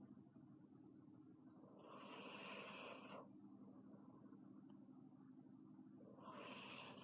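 Girl snoring in her sleep: two long, breathy snores about four seconds apart, each lasting over a second, over a steady low hum.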